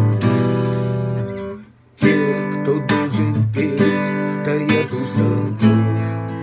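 Music: acoustic guitar strumming chords in an instrumental passage. It stops briefly about a second and a half in, then resumes.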